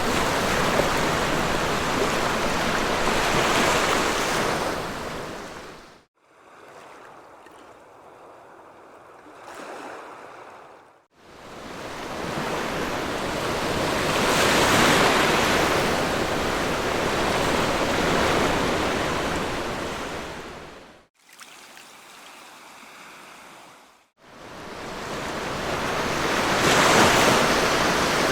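Sea waves surging and washing on a beach, a loud steady rush of surf. Twice, about a fifth of the way in and again about three-quarters through, it drops suddenly to a much quieter wash for a few seconds, then the loud surf cuts back in.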